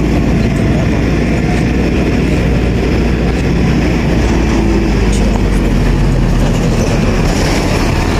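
Steady engine and road noise of a moving vehicle heard from on board, with a heavy low rumble of wind on the microphone.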